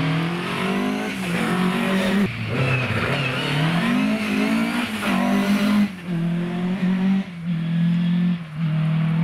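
A Mk2 Ford Escort rally car is driven hard past at full competition pace. The engine note climbs and falls repeatedly as it works through the gears, then drops to a lower, steadier note about six seconds in as the car goes by. A couple of brief breaks in the note follow as it pulls away.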